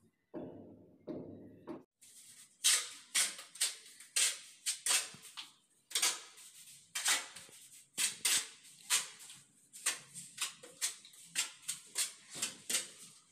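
A steel trowel scraping and knocking as cement mortar is spread onto the back of a ceramic tile: a quick run of sharp strokes, about two a second, starting about two seconds in. Before that, a few soft strokes of a sponge wiping the wall tiles.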